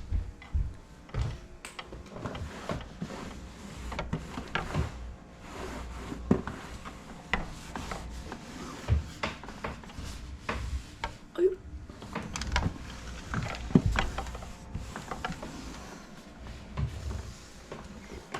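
Irregular knocks, clacks and rubbing of household items being handled and wiped during kitchen cleaning, with a few louder knocks about two-thirds of the way through.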